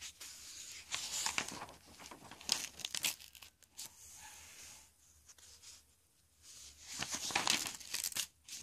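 Paper pages of a spiral-bound notebook being turned and handled, rustling and crinkling in a few bursts, the longest and loudest near the end.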